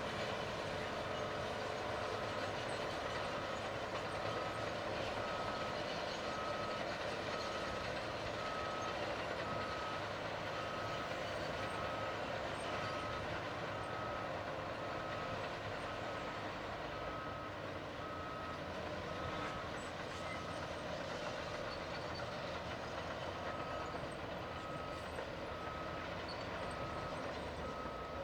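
Caterpillar D8T bulldozer's diesel engine and tracks running steadily while its backup alarm beeps at an even pace, the sign that the dozer is reversing. The beeping pauses for about two seconds near the end, then starts again.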